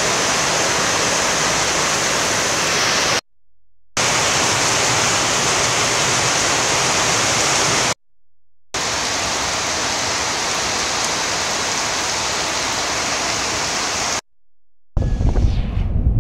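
A steady rushing noise, cut off abruptly twice for under a second each. Near the end it gives way to rougher, gusty wind noise on the microphone.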